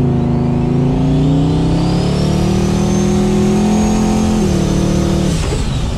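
Twin-turbo LS V8 accelerating hard, heard from inside the car's cabin: the engine note climbs steadily with a high turbo whistle rising above it. About four and a half seconds in the pitch steps down, and near the end the throttle closes and the whistle falls away.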